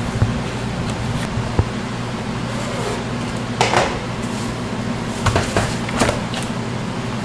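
Kitchen work sounds: a brief scrape and a few light knocks and clicks of utensils or containers being handled, over a steady low hum of kitchen machinery.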